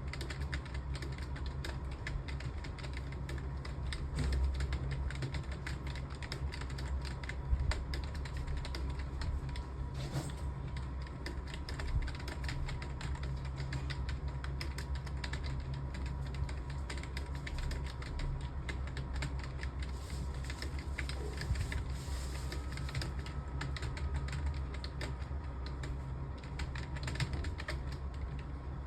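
Continuous typing on a computer keyboard: a dense, unbroken run of key clicks, with a faint steady hum beneath.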